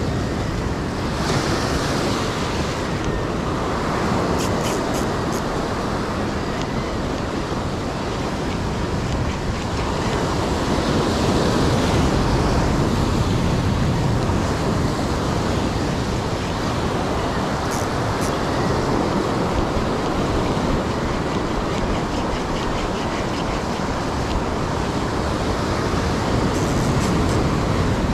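Sea surf breaking and washing over a rocky shore: a steady rushing that swells louder for a few seconds midway and then eases.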